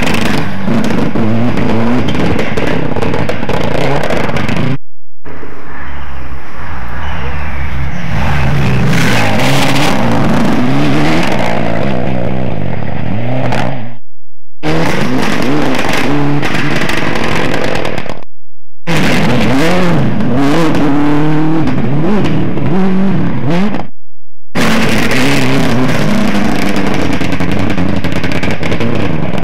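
Rally cars driving flat out one after another on a gravel forest stage: engines revving hard, rising and dropping through gear changes, with gravel crackling and spraying from the tyres. The sound breaks off abruptly several times between clips.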